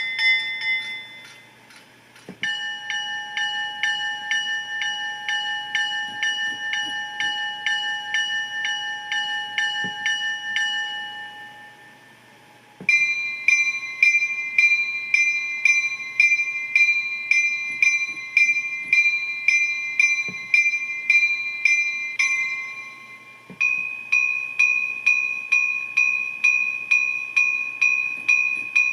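Diesel locomotive bell sounds from a TCS WOWSound DCC sound decoder, ringing steadily at about two strikes a second. Three different bells play in turn, each stopping before the next starts, the first lower in pitch than the two after it.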